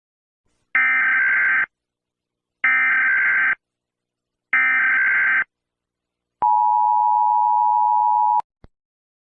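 Emergency Alert System SAME header: three identical bursts of screechy data tones, each just under a second long, followed by a steady attention tone lasting about two seconds that cuts off sharply, with a short click after it.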